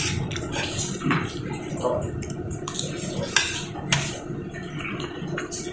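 Tableware clinking as people eat: spoons tapping and scraping a cooking pot, plates and plastic food containers, in scattered sharp clicks and knocks about once a second.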